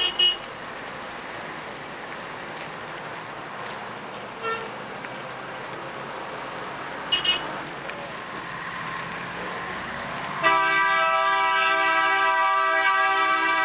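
Busy city street ambience with a steady traffic hum. Short vehicle-horn toots come at the start, about four and a half seconds in, and about seven seconds in. About ten seconds in a loud, long-held, multi-toned horn starts and keeps sounding.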